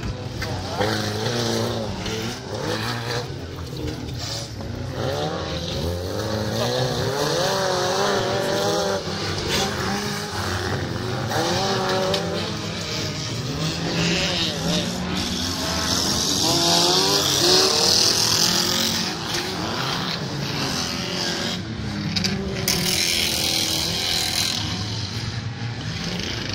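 Several old race cars' engines revving hard on a dirt track, their pitch rising and falling again and again as the drivers work through the gears and corners. A loud rushing hiss swells in from about halfway and fades a few seconds later.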